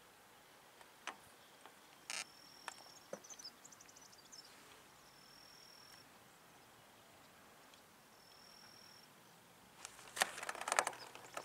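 Quiet pond-side ambience with a faint, high, thin note that repeats every three seconds or so, and a few soft clicks. Near the end comes a close flurry of clicks and rustles as the fishing pole is struck into a fish and handled.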